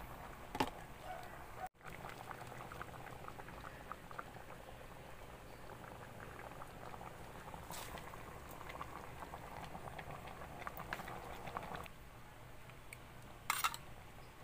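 Mung bean and vegetable stew bubbling in a pot at a simmer, with a steady crackle of small pops that eases off about twelve seconds in. A brief clatter comes near the end.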